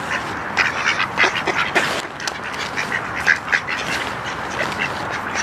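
Mallards calling at close range: many short quacks and raspy calls in quick succession over a steady rustle, with a few sharp clicks.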